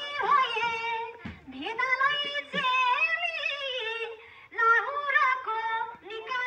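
A woman singing a Nepali folk tune in phrases, holding notes and sliding between them with bent ornaments, with short breaks between phrases.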